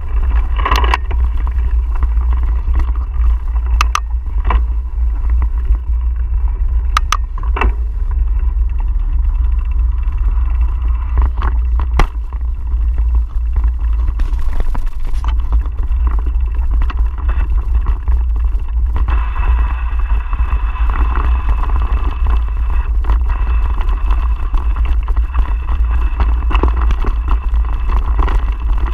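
Steady wind rumble on the microphone of a camera riding along on a mountain bike over a dirt and gravel track, with tyre noise and a few sharp knocks and rattles from bumps. The tyre noise gets louder about two-thirds of the way through.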